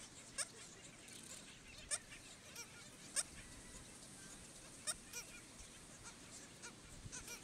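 Black skimmers in a nesting colony giving short, sharp calls: single calls every second or two, then a quick cluster near the end, over a faint steady hiss.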